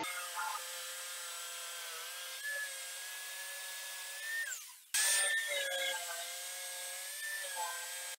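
Jigsaw cutting plywood together with a handheld leaf blower running on low, blowing the sawdust off the cut: a steady motor whine over a hiss. About four and a half seconds in the whine sags and falls in pitch and briefly drops out, then cuts sharply back in.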